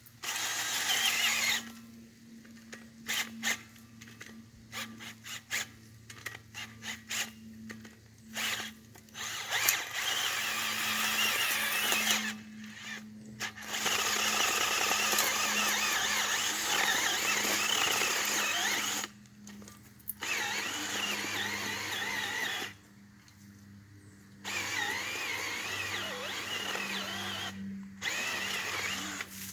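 Ryobi 18-volt cordless drill turning a homemade auger of old saw blades welded to rebar, boring a fence post hole in moist, loose soil. It starts in short stop-start bursts, then runs in longer stretches with a few brief pauses.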